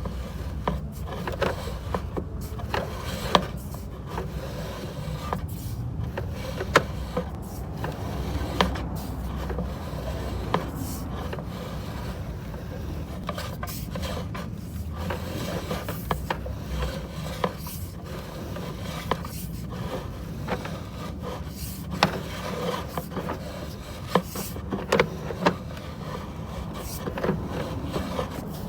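Sewer inspection camera's push cable being fed down a 4-inch drain line: uneven rubbing and scraping with scattered short ticks as the rod and camera head drag along the pipe, over a steady low hum.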